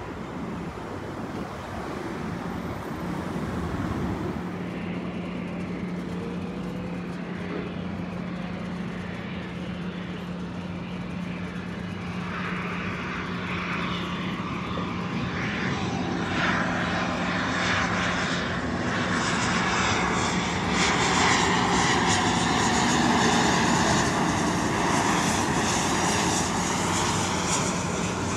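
Airliner engine noise from a landing aircraft, with a steady low hum at first, then a broad rumble that swells through the second half and is loudest near three-quarters of the way in.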